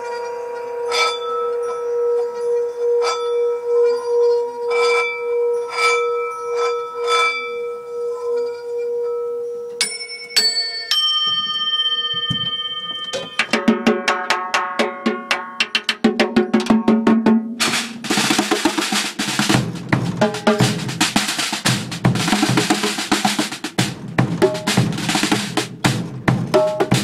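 A brass singing bowl rings with a steady, wavering tone and is struck about once a second. Around ten seconds in, a few high ringing tones sound. Then fast drumming starts and, about two-thirds through, becomes a loud, dense roll played by hand on a snare drum.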